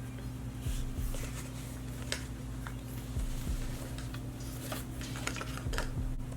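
Light handling noises from a recycled-nylon shoulder bag being handled: scattered small clicks and rustles over a steady low hum.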